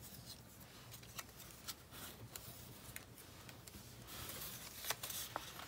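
Faint rustling and light ticks of die-cut cardstock ephemera pieces being handled and laid down on a tabletop, a little louder near the end.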